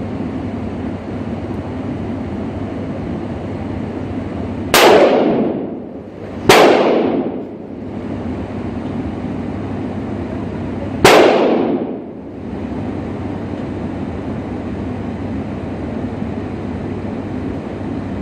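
Three gunshots at an indoor shooting range, each echoing briefly off the walls. The first two come about a second and a half apart, about five seconds in, and the third follows some four and a half seconds later, over steady background noise.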